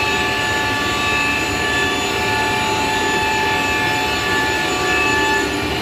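CNC machining centre running, a steady whine of several pitches over constant machine noise.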